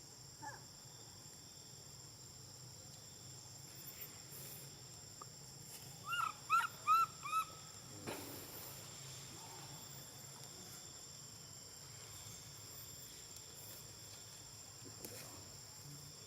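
A young macaque gives a quick run of about five short, high squeaky calls about six seconds in, over a steady high insect drone. A soft knock follows a moment later.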